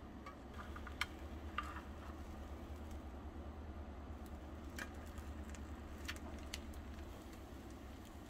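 A few light clicks and taps over a low steady hum.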